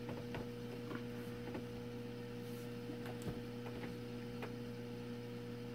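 Steady low electrical hum from aquarium equipment, with a handful of faint, scattered ticks and taps.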